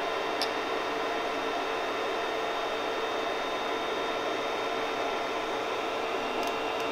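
Creality CR-10S Pro V2 3D printer running, with a steady whir of its cooling fans and a constant hum of tones as the print head moves over the bed during its automatic bed levelling before the first print. A single light click comes about half a second in, and two faint ticks come near the end.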